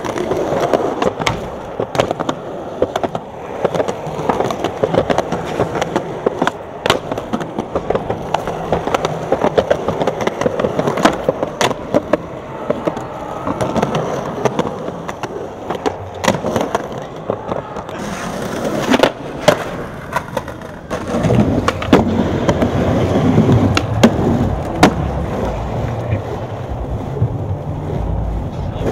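Skateboard wheels rolling on pavement, with repeated sharp clacks of the board popping and landing. From about two-thirds of the way through, the rolling grows louder and deeper.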